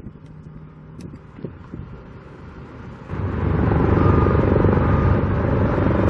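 A heavy engine running close by, a loud low rumble that sets in abruptly about halfway through, over faint construction-site noise.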